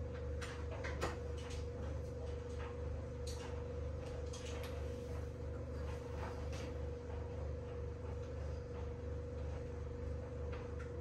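Light kitchen clatter: scattered short clicks and knocks from food being prepared at a worktop, over a steady electrical hum.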